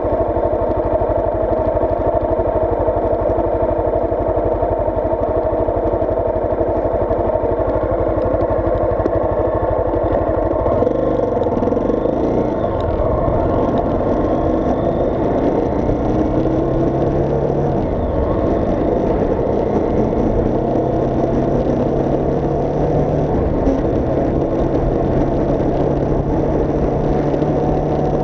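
Motorcycle engine idling steadily while stopped, then pulling away about eleven seconds in, its pitch gliding up and down through the gears before settling into a steady run along the road.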